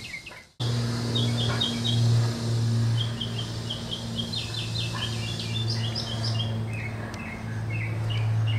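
Small birds chirping in quick series of short repeated notes over a steady low hum, which starts after a brief silent gap about half a second in.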